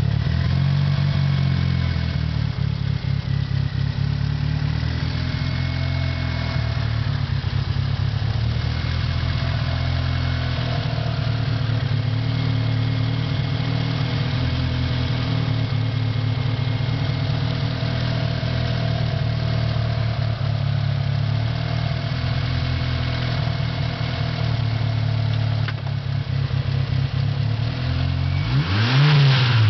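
Turbocharged car engine idling steadily. Near the end it gets one quick blip of the throttle, its pitch rising and falling, together with a short burst of hiss from the blow-off valve venting.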